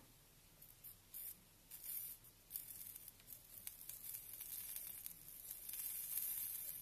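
Solder flux sizzling as a soldering pen melts solder onto a wire's ring terminal: faint crackles at first, turning into a steady high hiss from about two and a half seconds in.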